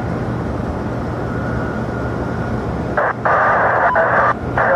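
Steady low rumble of aircraft at the airport; about three seconds in, an air traffic control radio channel keys open with a burst of narrow, tinny static hiss that drops out briefly and comes back near the end.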